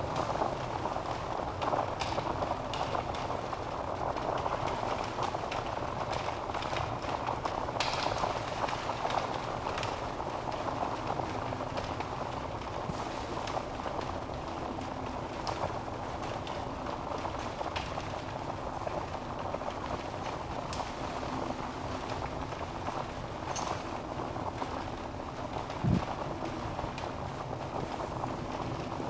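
Wood fire burning in a fireplace: a steady hiss of flame with frequent small crackles, and one louder pop near the end.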